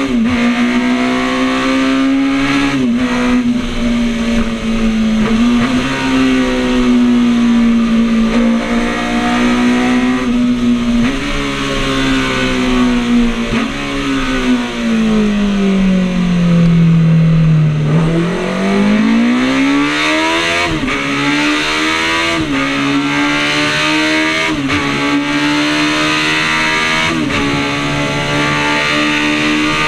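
Classic racing motorcycle engine heard from onboard at speed, held at high revs with brief dips in pitch at each gear change. Midway the revs fall steadily for about four seconds as it slows, then climb again, with wind noise throughout.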